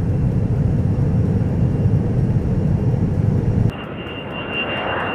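Jet airliner engines rumbling steadily, cut off suddenly about three and a half seconds in by a quieter jet engine sound: a hiss with a steady high whine.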